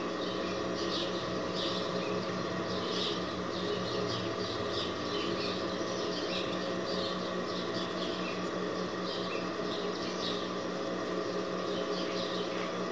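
Steady hum of an industrial sewing machine's motor running while the machine is not stitching, with short high bird chirps about once a second in the background.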